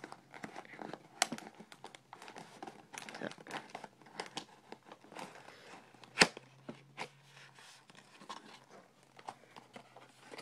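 Small cardboard figure box being handled and opened by hand: scattered scraping, crinkling and tearing, with one sharp snap about six seconds in.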